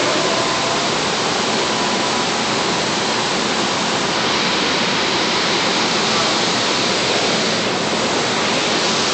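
Steady, loud rushing noise with no clear tone, even and unbroken throughout.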